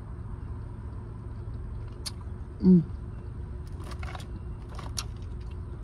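A woman's short hummed 'mm' while eating, about three seconds in, with a few light clicks of a fork against a plastic takeout container, over the steady low rumble inside a car.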